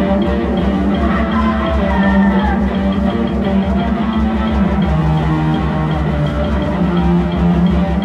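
Band playing live: guitar lines over a fast, even low pulse, with the low note stepping down about halfway through.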